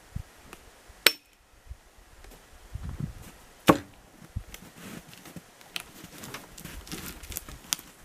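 Two sharp metallic clanks as a log is levered onto a metal log sled, one about a second in and a ringing one near four seconds, followed by lighter knocks and clicks of metal and wood.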